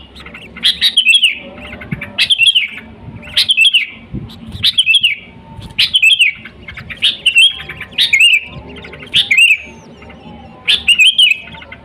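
Sooty-headed bulbul (kutilang) singing: about nine short, warbling phrases in a row, one every second or so.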